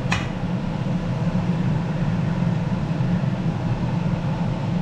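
Steady low background hum from a running motor or fan, with a brief high squeak falling in pitch just after the start.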